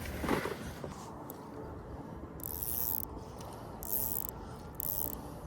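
Fishing reel being cranked in three short spurts, its gears whirring as the lure is reeled in.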